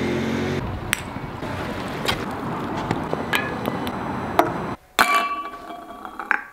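Background noise with scattered clicks and knocks. After a brief drop-out, a sharp clink about five seconds in as a ping-pong ball hits a drinking glass, the glass ringing for a second or so as it fades.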